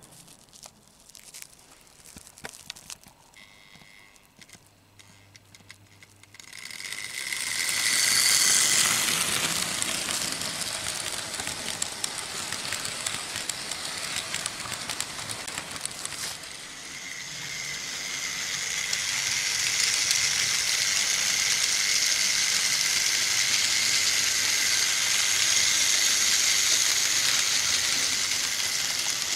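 Vintage Märklin H0 model trains running on metal M-track: a steady rattling clatter of wheels on the rails with a faint steady tone. The first few seconds hold only scattered clicks; the running noise rises sharply about seven seconds in as a train passes close, dips briefly past the middle, then builds again and holds.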